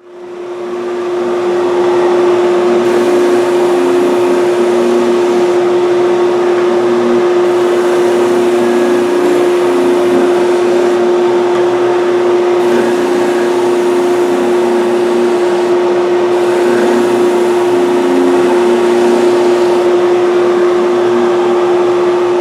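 Power sander spinning a narrow sanding tube against the curved inside edges of a wooden game board: a loud, steady motor hum with the rasp of abrasive on wood, wavering irregularly as the board is worked around the curve.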